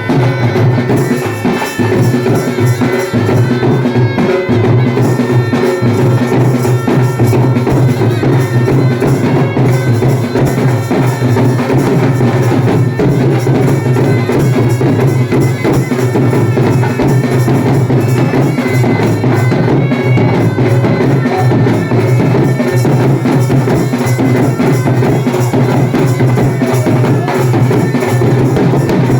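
Been (pungi, the gourd reed pipe) playing a Haryanvi folk tune over a steady drone, with drum accompaniment.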